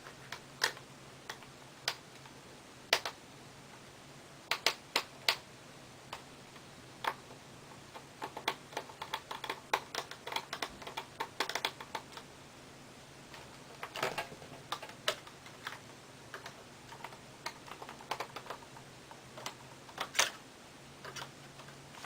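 Small Phillips screwdriver clicking and tapping against tiny screws in a laptop's plastic screen bezel as the screws are backed out. The clicks come irregularly, singly and in short clusters.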